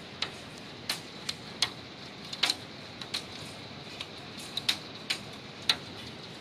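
Heavy hail coming down in a steady hiss, with irregular sharp clicks of single hailstones striking a hard surface close by, about two a second.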